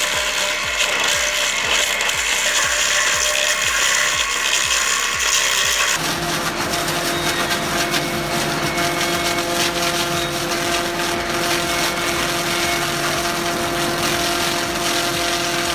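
Log-peeling machine working wood: a rhythmic mechanical clatter repeating a couple of times a second, then a steady machine hum with wood scraping and rubbing for the rest.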